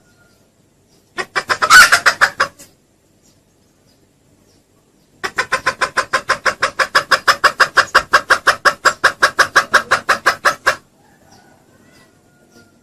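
Junglefowl lure call: a short burst of rapid clucks about a second in, then a long run of fast, even clucks, about seven a second, for five to six seconds.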